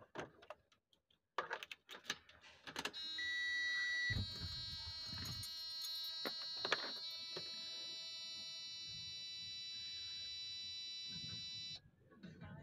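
A few clicks and knocks in a truck cab, then a dashboard warning buzzer sounds steadily for about nine seconds, with a short higher beep as it starts, and cuts off suddenly near the end. This is the truck being readied for an engine start.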